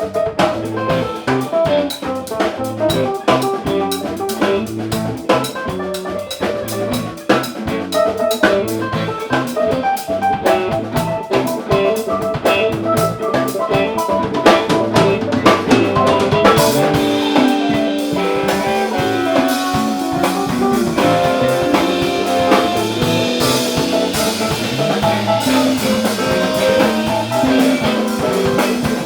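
Instrumental jazz-style jam in A minor: a drum kit keeps time under guitar and other sustained pitched notes. The cymbals get busier about halfway through.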